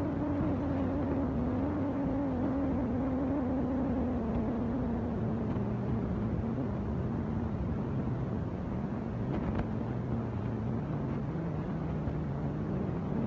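A motor or engine running steadily with a strong hum that slowly drops in pitch over the first several seconds, and one brief click about ten seconds in.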